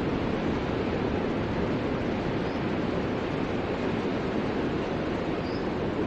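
Ocean surf: a steady rush of waves breaking and washing in, with no single crash standing out.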